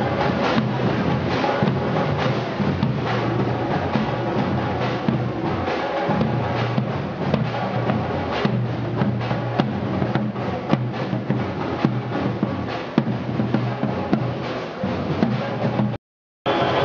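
Marching side drums beating a steady parade cadence, dense rapid strokes over a low steady tone. The sound drops out for a moment near the end.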